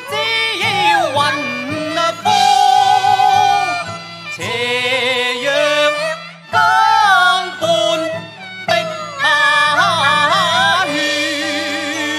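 Cantonese opera (yuequ) duet: male and female voices singing wavering, ornamented lines with held vibrato notes over traditional Chinese instrumental accompaniment.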